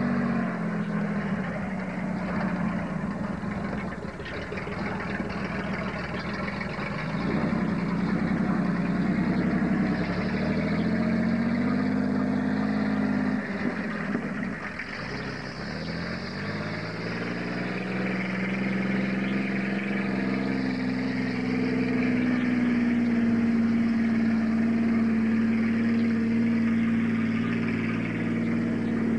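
Lifted pickup truck engine running, its pitch climbing as it revs from about ten to thirteen seconds in, then holding steady for the rest of the time.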